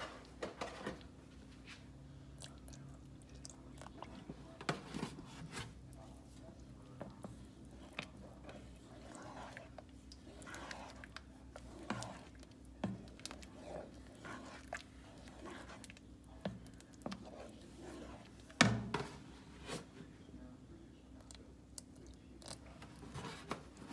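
A black spoon stirring thick soup in a stainless steel pot: wet sloshing with scattered light knocks and scrapes of the spoon against the pot, the loudest knock about two-thirds of the way through.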